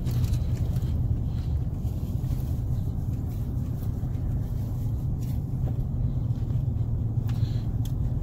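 Steady low engine and road rumble heard from inside a car's cabin while driving.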